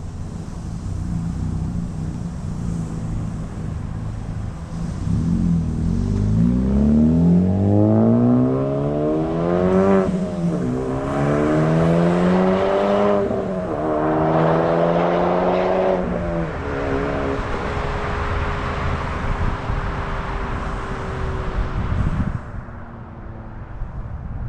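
Exhaust of a 2020 Honda Civic Type R FK8 with the muffler and resonator deleted, its turbocharged 2.0-litre four-cylinder accelerating hard. The pitch climbs with two quick upshifts, then eases into a steady, slowly falling note before cutting off near the end.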